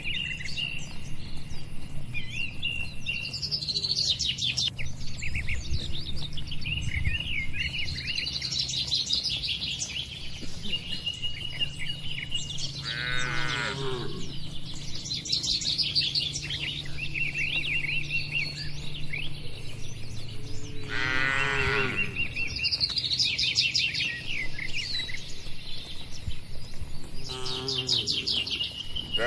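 Cattle calling twice, each call about a second long and falling in pitch, over birds chirping and trilling almost without a break; a louder moo begins right at the end.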